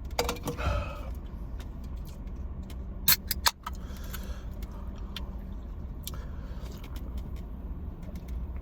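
Eating sounds while a man eats hot fried chicken in a car, over the car's steady low rumble. There are crinkly handling noises and a few sharp clicks and crunches about three seconds in, the loudest moment.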